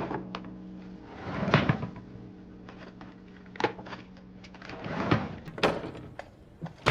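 Drawers and cupboard doors being opened and shut, a string of scattered clunks and clicks with rustling, as of someone rummaging through furniture.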